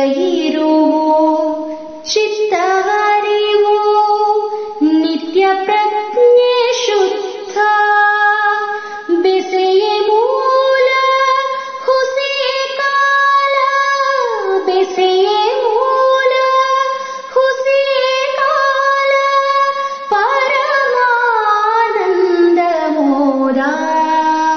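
A woman singing a Kannada bhavageete (light-music song) in long held notes that glide slowly up and down.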